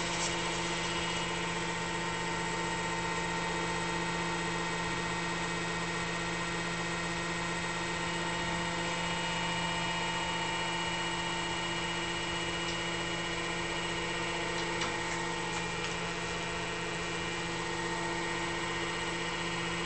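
Steady hum of a universal testing machine's motor and drive, with several steady tones, as it pulls a gas-welded 4130 steel tubing joint in tension toward breaking.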